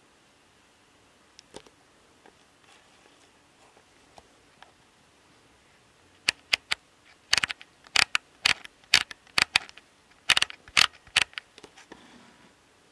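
A quick irregular run of sharp clicks and taps, starting about six seconds in and stopping near the end, after a few faint scattered ticks.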